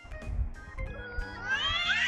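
A cat's long, drawn-out meow that climbs in pitch, starting a little past halfway, over background music.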